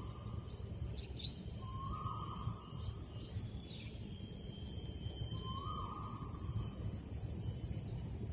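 Wild birds calling: a short mid-pitched call repeats about every two seconds, over a continuous chatter of high thin chirps. A steady low rumble of background noise runs underneath.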